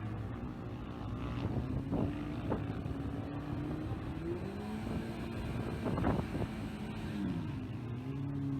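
An engine running, its pitch climbing and then falling away, with a few short sharp knocks.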